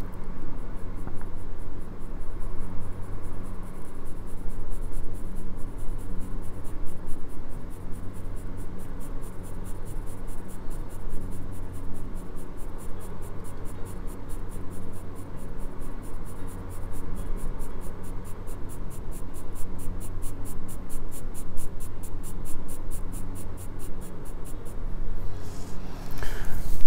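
Graphite pencil shading on drawing paper: quick, even back-and-forth strokes scratching steadily, several a second. There is a brief louder rustle near the end.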